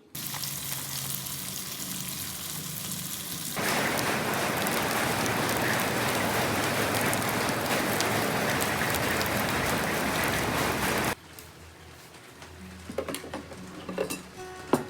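Steady hiss of falling water that gets louder about three and a half seconds in and cuts off abruptly about eleven seconds in, followed by a few faint clinks near the end.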